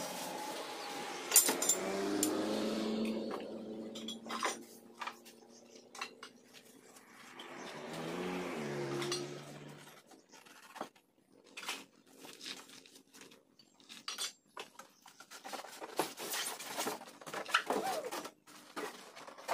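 Parts and packing being lifted out of a Makita LB1200F band saw's box: light metallic clinks, knocks and rattles, coming thickest in the second half. Two long pitched sounds of a few seconds each come in the first half.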